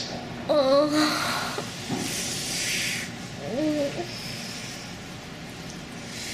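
Two short pitched vocal sounds from a person, each bending in pitch, with a hissing noise between them about two seconds in.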